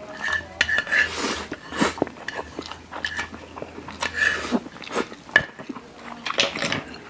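People eating spicy Samyang fire noodles: several hissing slurps of noodles and chewing, with wet mouth clicks in between.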